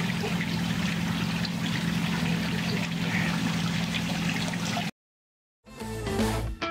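Steady running, trickling water in a pool pond, with a low steady hum underneath. It cuts off suddenly about five seconds in, and music begins near the end.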